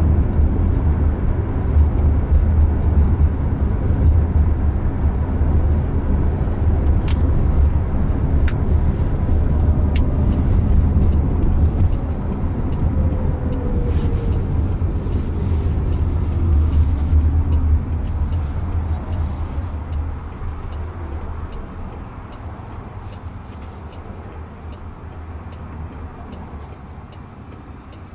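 Tyre and road noise inside the cabin of a moving Jaguar I-Pace electric car: a steady low rumble that quietens over the last third. A few sharp ticks come about a third of the way in.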